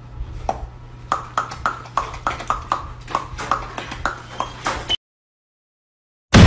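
A dog snapping its jaws over and over at a treat held above its head: a fast, even run of sharp clacks, about four a second, over a low steady hum. The clacks stop abruptly, and after about a second of silence a sudden, very loud burst of noise starts near the end.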